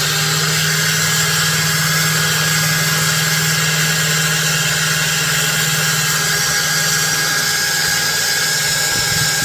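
Electric power tool, of the kind used to grind, sand or buff a knife blade, running steadily at full speed with a constant low hum over a broad hiss.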